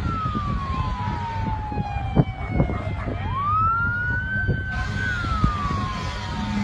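Fire engine siren wailing slowly: the tone falls, climbs back up a little after three seconds in, and falls again, over a steady low rumble of vehicle noise. A sharp knock stands out about two seconds in.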